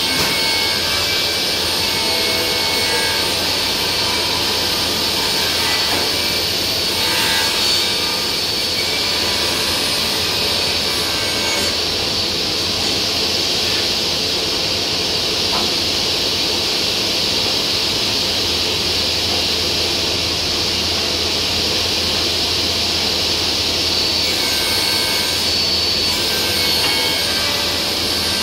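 Spindle moulder and workshop dust extractor running together: a loud, steady machine noise with a strong high hiss over a low hum.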